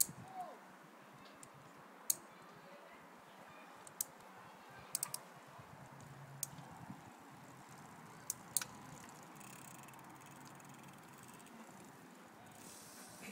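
Quiet background hiss with a handful of short, sharp clicks at irregular intervals.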